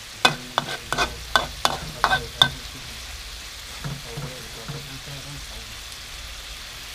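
Metal spatula striking and scraping a steel wok, about eight sharp ringing clanks in the first two and a half seconds, then a steady quiet sizzle of noodles cooking in sauce.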